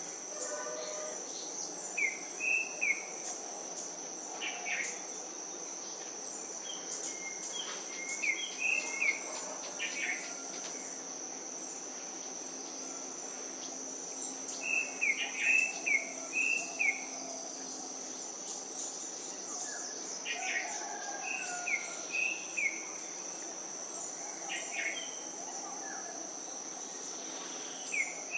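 Steady high-pitched insect drone with birdsong over it: one bird repeats a short phrase of three or four quick notes about every six or seven seconds, and single chirps fall in between.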